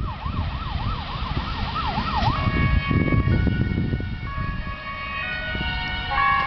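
A warbling siren-like tone, sweeping up and down about three times a second. About two seconds in it gives way to a string of steady electronic tones that change pitch, over low rumbling noise.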